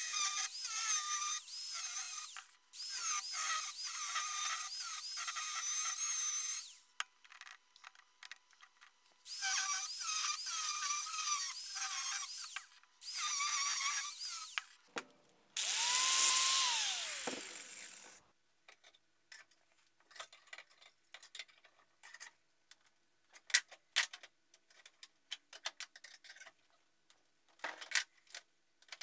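Angle grinder with a cut-off disc cutting rusty steel pipe: four loud, high, wavering whines as the disc bites, each cut a few seconds long with short breaks. A little past halfway the grinder is let go and its whine falls away as the disc spins down, followed by scattered light clicks and taps.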